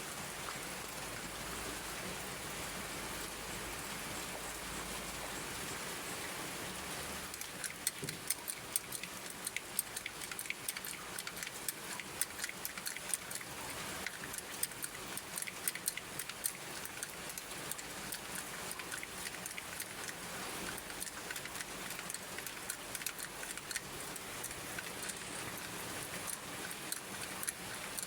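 Rain falling, a steady hiss; from about seven seconds in, many sharp drops tap on a hard surface.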